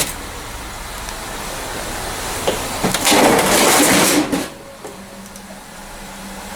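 Junk being shifted and rummaged through inside a dumpster container, with a loud burst of noise about three seconds in that lasts over a second. A faint steady low hum follows from about five seconds in.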